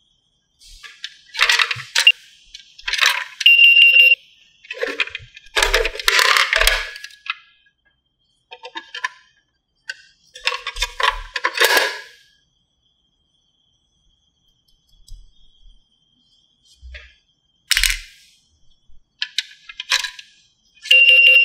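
Plastic toy vending machine being played with: toy coins clinking into the coin slot and small plastic clatters as a toy drink can drops into the tray and is handled. A short electronic beep sounds about four seconds in, and a steady electronic tone from the machine starts near the end.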